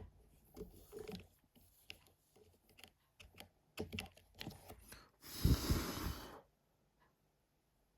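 Light clicks and taps of small phone parts being handled, then about five seconds in a single strong puff of breath blown onto the phone's parts to clear dust, lasting about a second and hitting the microphone as a rush of wind.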